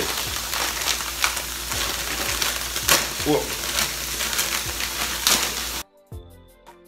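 Chicken and vegetable stir-fry sizzling steadily in a hot frying pan, with scattered light clicks and taps. Near the end it cuts suddenly to quieter background music with a steady beat.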